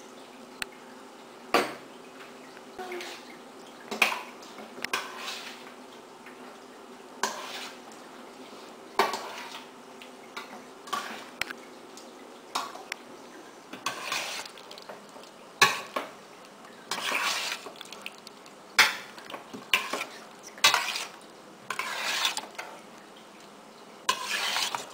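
A metal spoon stirring chicken in a thick yogurt marinade in a stainless steel pot: irregular clinks and scrapes of the spoon against the pot, some drawn out for about a second, over a faint steady hum.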